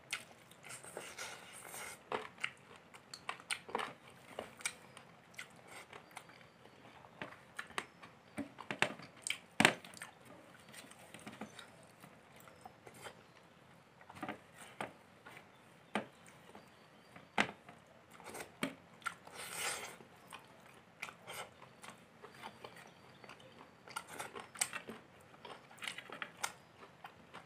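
Mouth sounds of someone eating chicken curry and polao rice by hand: chewing and biting, with scattered sharp clicks and crunches at an irregular pace.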